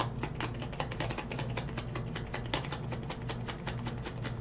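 A deck of tarot cards being shuffled by hand: a quick, irregular run of light card clicks and flicks.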